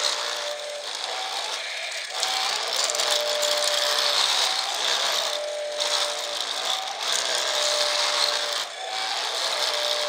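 Radio-controlled toy road roller with its drum vibration switched on, rattling steadily as it drives over crushed gravel, with a small electric motor whine that comes and goes every second or two.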